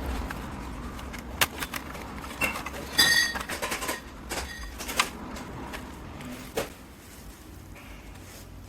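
Scattered sharp clicks and knocks with a short metallic clink about three seconds in, from tools and parts being handled during disassembly.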